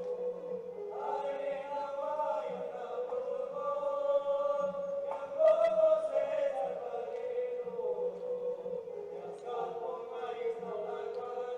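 A group of Balti men chanting a folk song together in unison, holding long steady notes.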